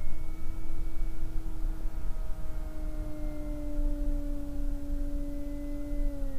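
Radio-controlled model airplane's motor and propeller droning as one steady tone, its pitch sagging slowly and then falling quickly near the end. Low wind rumble on the microphone.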